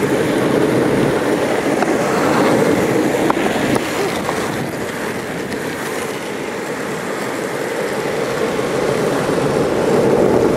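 Skateboard's urethane wheels rolling over asphalt at speed: a steady, loud rolling rumble with a few faint clicks.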